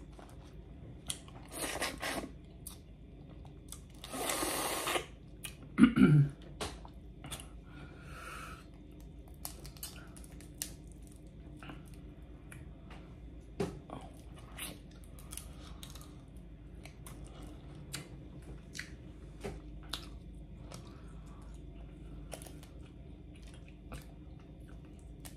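Boiled crawfish being cracked and peeled by hand and eaten close to the microphone: many small crackling clicks of shell, with chewing. Two short hissy sounds come in the first five seconds, and a brief vocal sound about six seconds in is the loudest moment.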